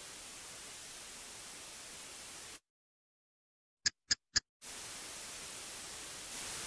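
Steady static hiss that cuts off abruptly about two and a half seconds in, leaving dead silence broken by three short, sharp, high chirps in quick succession; then the hiss starts again.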